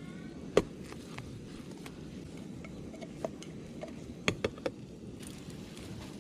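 Plastic spatula knocking and scraping against a nonstick frying pan as an omelette is folded over, with sharp clacks, the loudest about half a second in and three in quick succession around four seconds in, over a steady low rumble.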